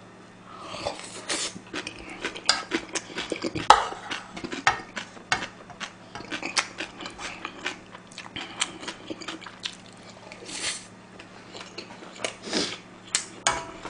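Close-miked chewing of a mouthful of fried rice: a steady stream of quick, wet mouth clicks and smacks, with a few light utensil knocks on the dishes. A faint steady hum sits underneath.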